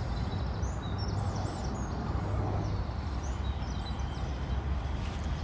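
Small songbirds singing in short chirping phrases, twice, over a steady low background rumble.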